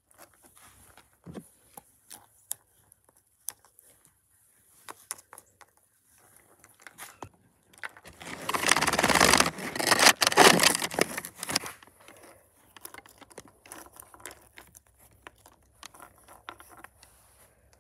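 Small plastic toy figurines handled and set down on brick: scattered light clicks and taps, with a louder stretch of rustling scraping about eight seconds in that lasts some four seconds.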